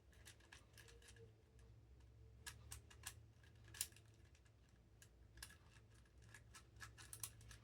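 Faint, irregular clicks of plastic pieces on a new 3D-printed icosaix twisty puzzle being turned by hand, a few to several clicks a second with gaps between. The puzzle is still stiff and not yet worn in.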